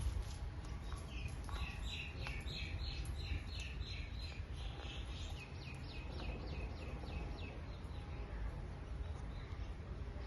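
Parakeet chirping: a quick run of short, repeated high chirps starting about a second and a half in and lasting several seconds, over a steady low rumble.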